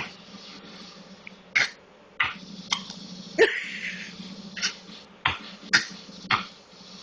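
Coughing: a run of about eight short, sharp coughs spaced roughly half a second to a second apart. The loudest and longest comes a little past the midpoint.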